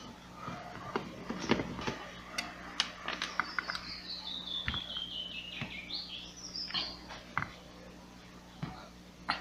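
Screws being taken out of a steam iron station's plastic housing with a screwdriver: a run of small clicks and knocks, densest in the first few seconds. Over a few seconds a high squeak slides down in pitch in small steps, then jumps back up and stops.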